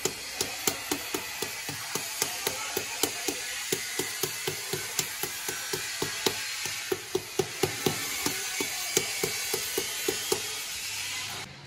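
Mallet tapping a ceramic floor tile down into its fresh mortar bed: quick, even knocks at about three a second that stop shortly before the end.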